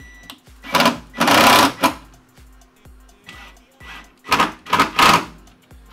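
Cordless driver sinking two screws through a metal mounting bracket into the underside of a wooden desktop, each in a few short, loud bursts: the first about a second in, the second a little after four seconds. Background music with a steady beat plays underneath.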